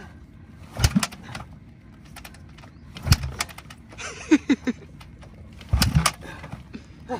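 Motocross bike being kick-started: three hard kicks on the kickstarter, roughly two and a half seconds apart, each a thump with a clatter. The engine does not catch.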